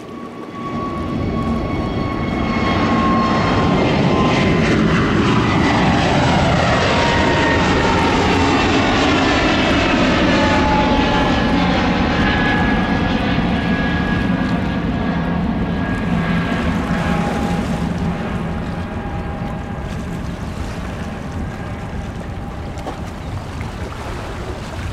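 Jet engines of an Airbus A320-family airliner at high power as it climbs away. The noise swells about a second in and stays loud, with whining tones that glide down in pitch as the jet passes, then fades slowly in the last third.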